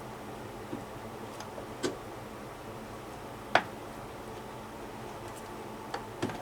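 A few sharp clicks and light knocks of tools and parts being handled during disassembly, five in all; the loudest is a sharp click about three and a half seconds in. A steady low hum runs underneath.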